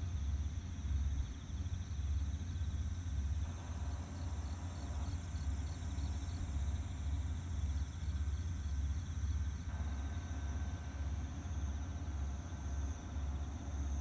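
Insects chirping in an even pulsing rhythm over a loud, uneven low rumble.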